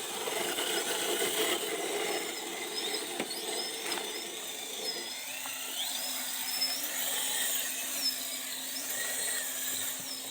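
An RC rock crawler's electric motor and gear drivetrain whining, the thin high pitch rising and falling as the throttle varies.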